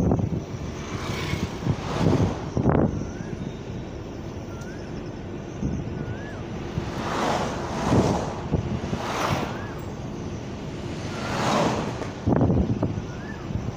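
Wind and road noise from a moving car, a steady rushing that swells into loud whooshes every few seconds as things pass close by. A faint short chirp recurs several times on top.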